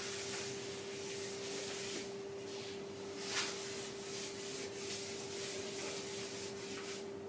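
Charcoal scraping and rubbing across a large sheet of paper in drawing strokes, with one sharper scrape about three seconds in, then a run of short quick strokes about three a second that stops shortly before the end.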